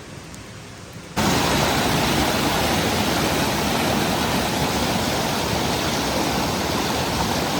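Rushing river water: a steady, loud hiss that starts suddenly about a second in.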